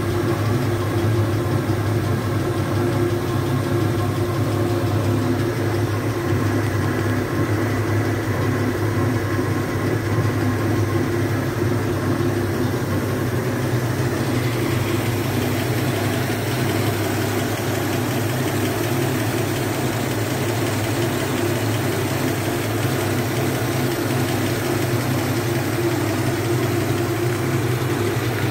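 GMC CCKW truck's 270 cubic-inch straight-six petrol engine idling steadily, with an even hum at one constant speed.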